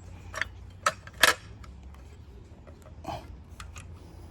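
A few sharp clicks and knocks from a circular saw being handled and its parts worked. The loudest comes about a second in, and a softer one near the end.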